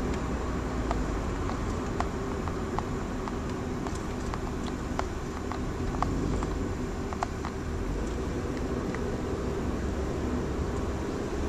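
Car interior noise while driving: a steady engine and road rumble heard from inside the cabin, with a few light, irregular ticks.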